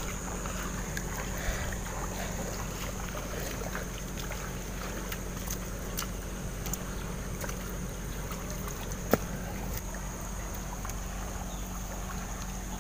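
River water lapping and flowing against a muddy bank, under a steady high-pitched tone, with a few small clicks and crumbles from fingers breaking apart wet rock and mud; one sharper click about nine seconds in.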